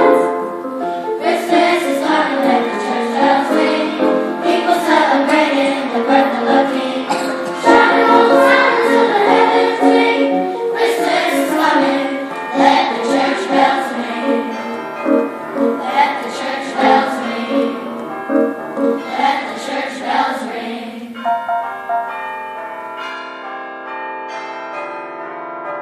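Children's choir singing a gospel song with accompaniment. About 21 seconds in the singing stops and bells ring out, several held tones sounding together.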